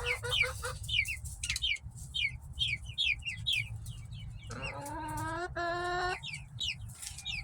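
Backyard chickens calling: a steady run of short, high, falling chirps, a few a second, and about four and a half seconds in a longer, drawn-out two-part call. A steady low rumble runs underneath.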